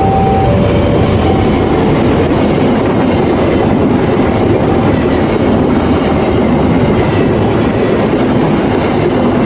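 Train running on the rails, a loud steady rumble of wheels and carriages. A two-tone alternating warning tone fades out about a second in.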